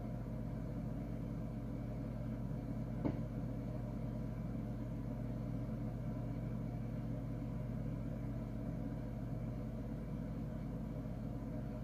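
Homemade cabinet incubator running with a steady hum from its always-on circulation fan and the motor tilting the egg-turner trays through a turning cycle. One faint click about three seconds in.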